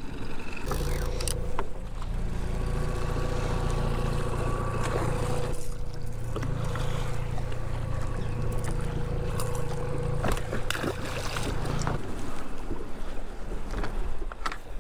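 A boat motor running steadily while trolling, a low hum with a faint even whine over it that cuts out about twelve seconds in. Scattered clicks and knocks of handling a fish and tackle come over it.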